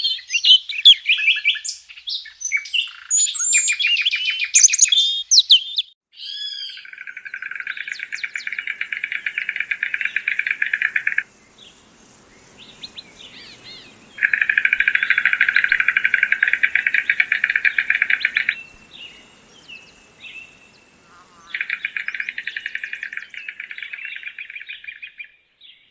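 Varied chirping and whistled bird calls for the first few seconds, then three long, very rapid rattles, each lasting several seconds, typical of white stork bill-clattering, with a faint steady high hiss behind them.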